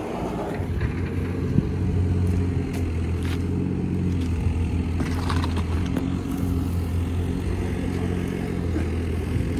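An engine running steadily, a low even hum, with a few faint crackles of dry alfalfa hay being handled.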